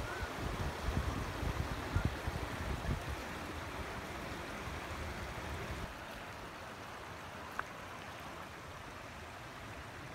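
Steady rush of a shallow river running over stones, with wind buffeting the microphone during the first few seconds and a single sharp click about seven and a half seconds in.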